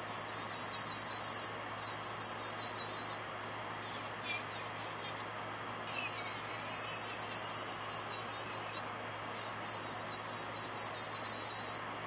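Electric nail drill spinning at high speed, its bit grinding gel off a long fingernail in short passes: a high-pitched, fluttering whine that breaks off and starts again several times, its pitch dipping and rising for a few seconds around the middle.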